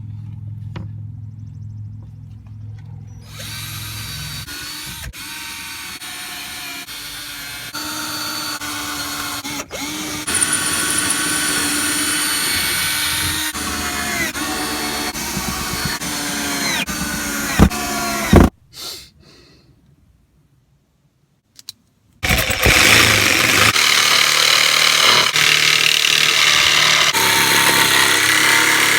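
Power drill driving a series of screws into wood, running in long stretches. The motor winds down about 18 seconds in, stops for a few seconds, then starts again louder.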